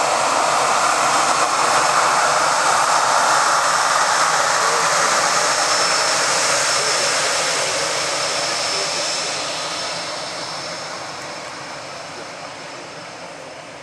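Jet airliner engines running loud, a steady roar with a thin high whine over it, fading away over the last few seconds.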